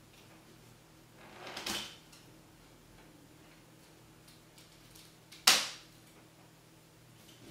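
Plastic pieces of a marble-run toy being fitted together: a short scraping rub about a second and a half in, then one sharp snap as a part clicks into place about five and a half seconds in.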